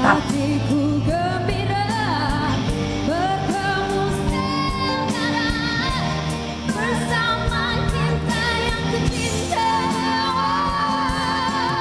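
Malay pop ballad sung live with band accompaniment; near the end a voice holds long notes with vibrato.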